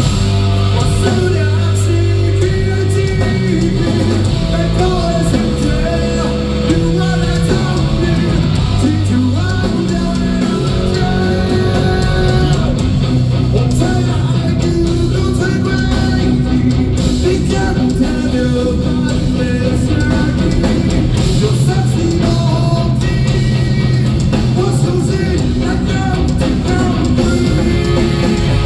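A rock song with singing over electric guitars, bass and drums.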